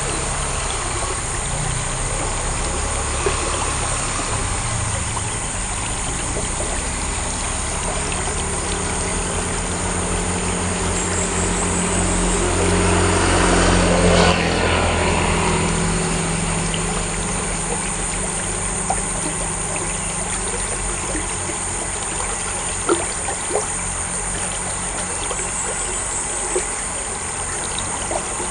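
Steady trickling, running water from a roadside culvert, with a motorbike passing on the road: its engine swells to a peak about halfway through, drops in pitch and fades away. A few light ticks near the end.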